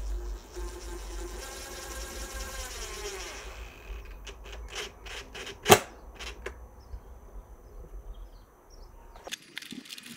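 Cordless drill driving a screw slowly into a board, its motor whining and dropping in pitch for about three seconds, then a series of clicks with one sharp, loud click a little past the middle. The screw is run in gently so it pulls a curved, very dry board down against the base without splitting it.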